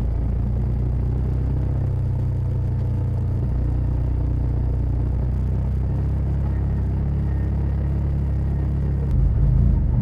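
Side-by-side UTV engine running steadily, heard from inside the cab as it drives a dirt trail. About nine seconds in, the engine sound gets louder and rougher.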